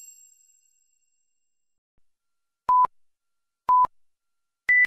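Countdown timer sound effect: a chime fading out at the start, then three short electronic beeps a second apart, the first two at one pitch and the last one higher.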